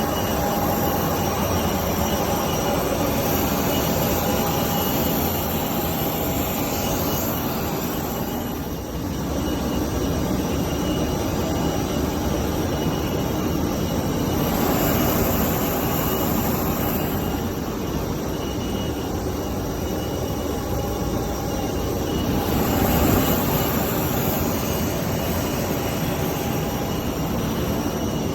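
Jet aircraft turbine noise: a steady loud roar with a high whine running through it, swelling about halfway through and again near the end.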